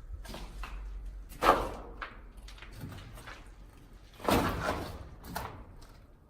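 A series of knocks and bangs: a sharp bang about a second and a half in and a longer, heavier bang about four seconds in, with lighter knocks between.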